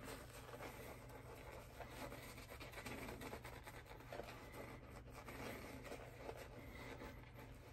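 Faint, scratchy brushing of a shaving brush's bristles as it works wet shaving lather over a stubbled face and cheeks.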